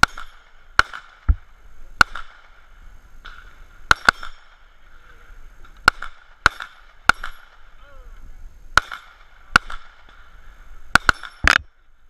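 Two 9 mm pistols, a Springfield Armory XD Subcompact and a Smith & Wesson M&P Shield, firing in an irregular exchange of about fourteen shots, some in quick pairs, as the shooters race on a steel dueling tree. A steady ringing tone hangs between the shots, typical of struck steel paddles.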